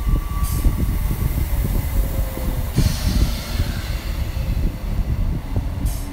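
ScotRail electric multiple unit running past along the platform: a steady low rumble of wheels on rail with many short clicks. A burst of hiss comes in about three seconds in.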